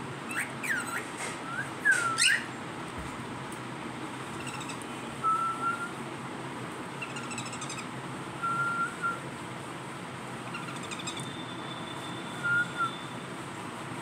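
Pet cockatiels whistling and chirping. A few loud sweeping whistles come in the first two seconds, then short single notes and brief raspy chirps every few seconds over a steady background noise.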